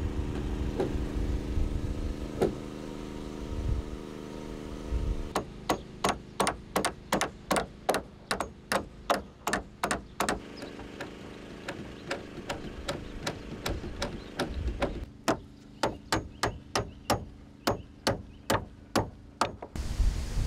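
Hammer nailing wooden roof boards: repeated sharp strikes at about two a second, starting about five seconds in, fainter for a few seconds in the middle and stopping just before the end. A steady low hum sits underneath.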